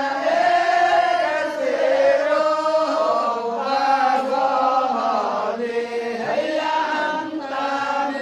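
Bani Cham religious men chanting zikir together: a slow, melodic chant of male voices with long held notes.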